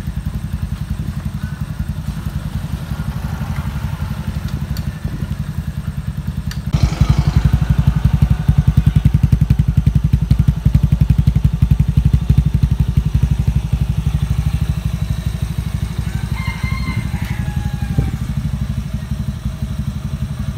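Yamaha Sirius's single-cylinder four-stroke engine, fitted with a 54 mm piston and a performance cam, running steadily at idle with an even exhaust pulse. It gets louder and sharper about seven seconds in and stays so.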